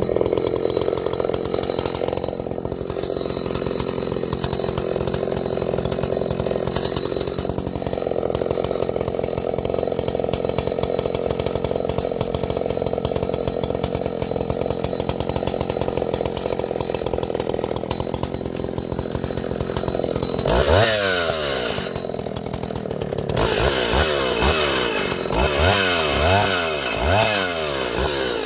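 Husqvarna L65 two-stroke chainsaw running on its current carburettor tune: it idles steadily, revs up sharply about twenty seconds in, then is revved up and let down again several times near the end.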